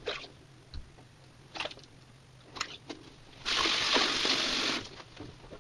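A few light knocks and clicks, then, about three and a half seconds in, water running and splashing for about a second and a half.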